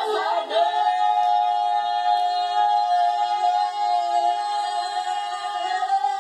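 Three women singing a cappella, holding one long drawn-out note in harmony after sliding up into it at the start.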